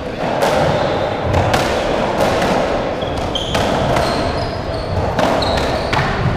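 Racketball rally: about ten sharp cracks of the ball being struck by racquets and hitting the court walls and floor, with short high squeaks of players' shoes on the wooden court floor.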